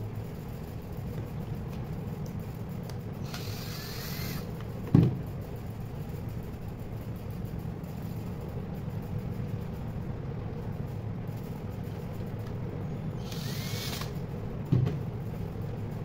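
Steady low rumble and hum with two brief hissing swells, and two sharp knocks about ten seconds apart.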